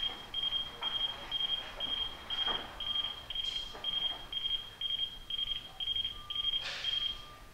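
Warning beeper on a powered transfer conveyor giving a high, even beep about twice a second while the conveyor carriage travels back to its home position. The beeping stops about seven seconds in, as the carriage comes to rest.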